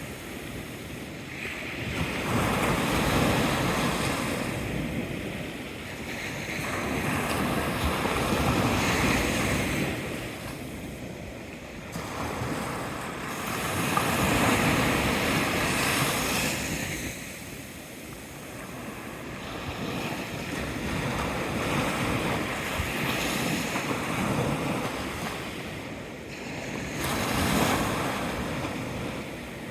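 Ocean waves rolling in and washing back, a rushing sound that swells and fades every five or six seconds.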